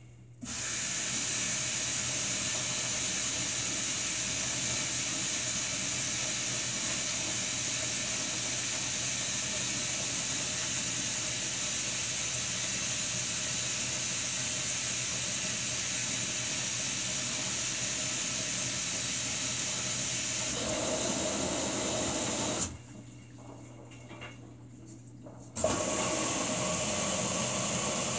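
Samsung WF45N5300AW front-load washer filling: water sprays into the drum with a steady hiss and a low hum, cutting off for about three seconds near the end and then starting again.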